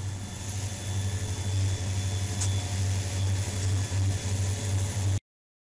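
Diesel-electric freight locomotives passing close by, their engines giving a steady low drone that builds slightly over the first couple of seconds. The sound cuts off abruptly about five seconds in.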